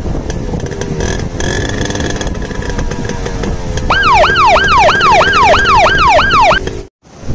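A Yamaha RX 135's two-stroke single-cylinder engine running on the standing bike. About four seconds in, a loud police-siren sound effect comes in over it, rising and falling about three times a second for under three seconds, then cuts off suddenly.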